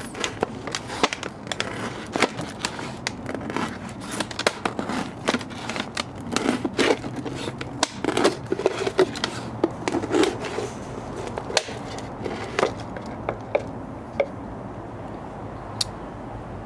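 A Spyderco Resilience folding knife cutting around a plastic 2-litre soda bottle as the bottle is turned. The thin plastic crackles and crinkles in irregular sharp clicks, which thin out in the last few seconds.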